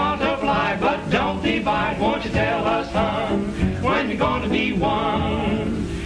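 Men singing a jaunty popular-style song together as a group, with musical accompaniment.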